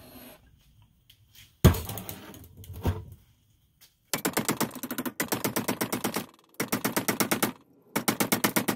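Hammer striking a torch-heated 3/8-inch rod to bend it to 90 degrees. Two single blows come first, then three runs of quick taps at about eight a second.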